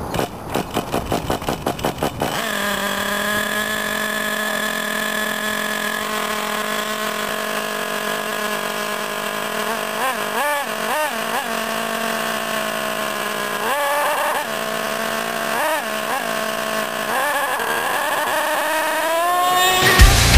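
Thunder Tiger MTA-4 S28 RC monster truck's small .28 two-stroke nitro engine being started: about two seconds of rapid regular popping, then it catches and runs steadily at a high idle. A few short throttle blips come in the middle, and it revs up to full throttle right at the end as the truck takes off.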